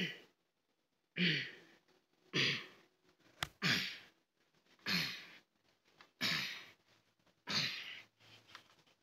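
A person making repeated breathy, voiced exhales, one about every second and a quarter, each falling in pitch, with a single short click about three and a half seconds in.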